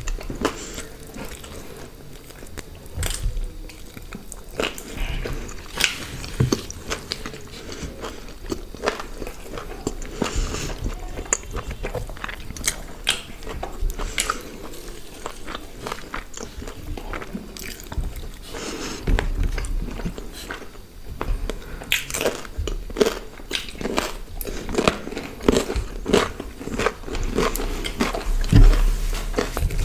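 Close-miked eating of grilled chicken and paratha: biting, tearing and chewing, with many irregular small crunches and clicks.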